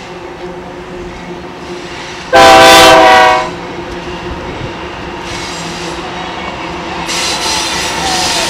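Diesel freight locomotive blowing its multi-tone horn in one blast of about a second, some two seconds in, over the rumble of the locomotives' engines. Near the end the rumble grows louder and noisier as the locomotives roll across the bridge.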